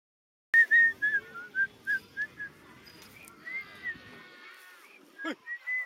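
A quick run of short, high whistled notes, about four a second, followed by a tangle of gliding whistled tones and a few more short notes near the end.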